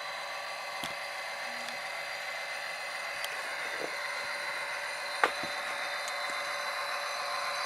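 HO-scale Athearn SD50 model locomotive running: a steady whine and hiss from its motor and its sound decoder's small speaker, with scattered light clicks and one sharper click about five seconds in.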